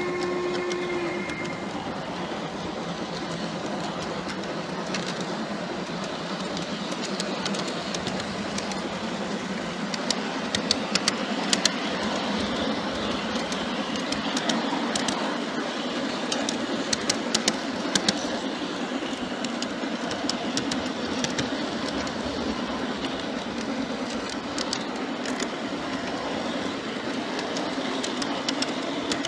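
G-scale model freight train rolling along garden railway track: a steady rumble of small wheels on rails, with sharp clicks over the rail joints, thickest about ten to eighteen seconds in. A steady whistle tone from the locomotive's sound system cuts off about a second in.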